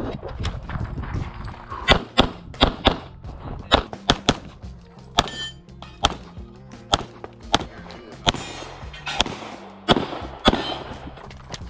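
Semi-automatic pistol shots fired in rapid strings, often in quick pairs, many in all, over background music with a steady bass line.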